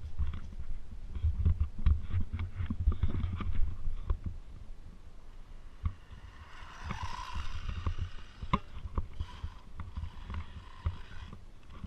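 Foxx S911 electric RC truck driving over a dirt track: irregular low thumps and knocks from bumps and landings, with a brief higher hiss and whine about seven seconds in.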